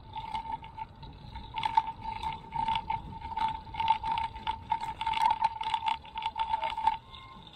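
Bicycle rolling over rough concrete and dirt, heard from the handlebars: a steady even buzz with many irregular rattles and knocks as it jolts over the bumps. Both stop about seven seconds in.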